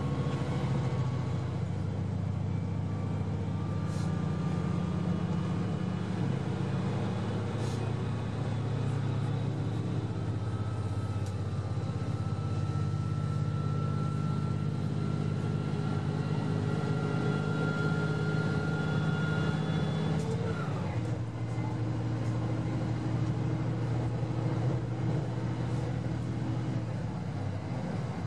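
Steady drone of the KiHa 189 diesel railcar's engines heard from inside the passenger cabin while the train runs at speed, with a faint whine that climbs slowly. About two-thirds of the way through, the whine drops away and the engine note changes suddenly.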